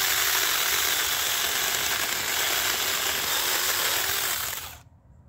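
Saker mini cordless electric chainsaw running and cutting through a thin bush stem, a steady hissing whir that stops suddenly near the end.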